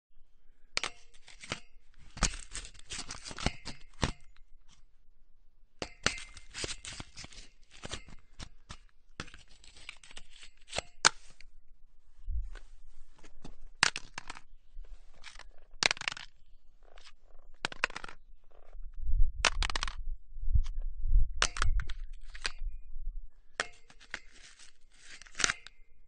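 An object grating and scraping against metal in irregular bursts of a few seconds each, with sharp clinks and rattles among the scraping; a heavier, lower rumbling stretch comes about three-quarters of the way through.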